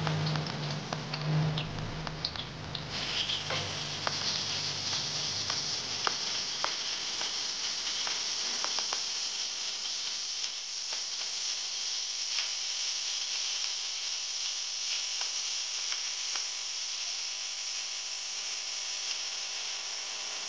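Garlic, onion and shrimp paste (bagoong alamang) frying in hot oil in a wok: a steady sizzle with scattered pops and crackles, the pops thinning out in the second half. A low hum sits under the first few seconds.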